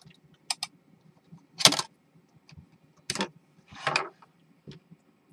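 Hands handling the plastic body of a Hubsan H501s quadcopter while seating its battery and switching it on: a couple of quick clicks, then several louder short knocks and rubs about a second apart.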